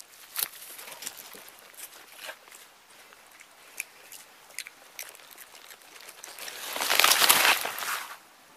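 Vervet monkeys foraging in a pile of cabbage leaves: scattered small taps and crackles, then a louder rustling crunch of leaves being handled about seven seconds in that fades away after a second or so.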